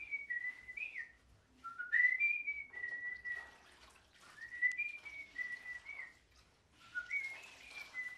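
Someone whistling a simple tune in short phrases of a few notes with small slides up and down, a new phrase about every two seconds. Faint swishing of a wet floor cloth runs underneath.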